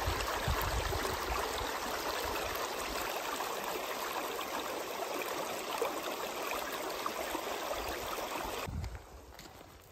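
Shallow stream running over stones, a steady rushing of water that stops abruptly about nine seconds in.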